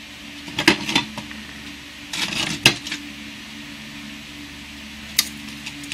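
Metal clinks and knocks of a large steel knife blade and a metal ruler being handled and set down on a wooden board. There is a knock about a second in, a short clatter around two and a half seconds, and a sharp tick near the end, over a steady low hum.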